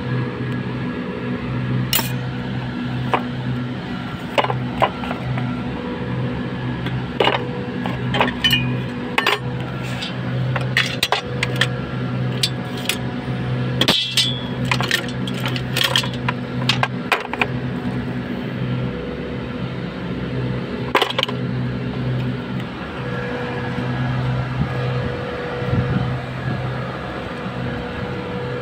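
Scattered sharp clinks and knocks of steel compressor parts (pistons, cylinder liners, bearings) striking each other, thickest in the middle, over a steady low machine hum.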